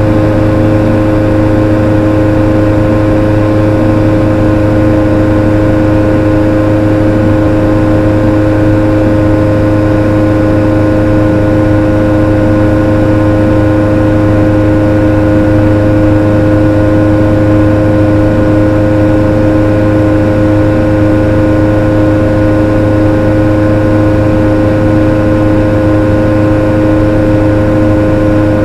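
ARV Super 2 light aircraft's engine and propeller running at steady power in flight, heard from inside the cockpit: a loud, unchanging drone with constant humming tones.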